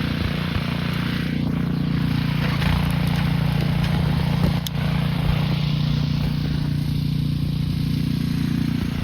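EGO SNT2102 56-volt cordless snow blower running steadily, its electric motor and auger making a continuous hum, with a brief dip and a sharp click about four and a half seconds in.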